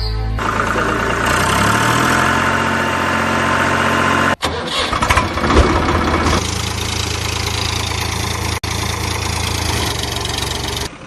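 Vehicle engine running steadily with an even hum, with short drop-outs about four and a half and eight and a half seconds in and a change in the sound about six and a half seconds in.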